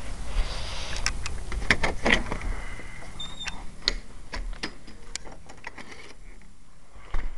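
Irregular clicks and knocks of someone walking through a house, footsteps mixed with handling noise, thinning out after about six seconds.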